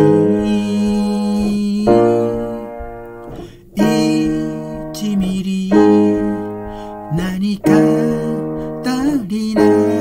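Piano chords played with both hands. A new chord is struck about every two seconds and left to ring and fade.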